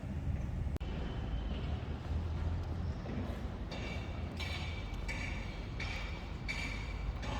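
Outdoor city ambience with a steady low rumble. From about halfway in, a short buzzy high-pitched call repeats regularly, roughly once every three-quarters of a second.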